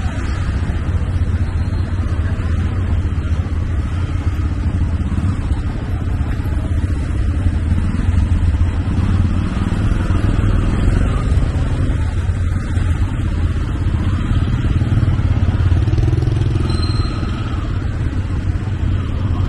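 Street traffic heard from within it while moving: motorcycle and auto-rickshaw engines running close by, a steady low rumble.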